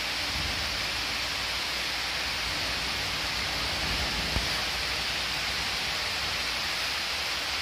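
Steady, even hiss of background noise with no rhythm or pitch, and one faint tick about four and a half seconds in.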